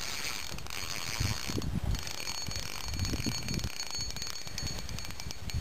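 Electronic carp bite alarm sounding a fast run of high beeps, the signal of a fish taking line after a bite, over low rumbles.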